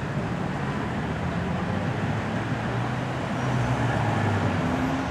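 Road traffic with car engines running. In the second half one engine's note rises as a vehicle accelerates.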